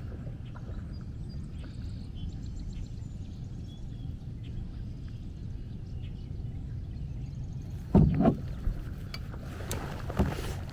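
Outdoor wetland ambience: a steady low rumble with faint birdsong. About eight seconds in comes a single loud thump, followed by water sloshing and splashing.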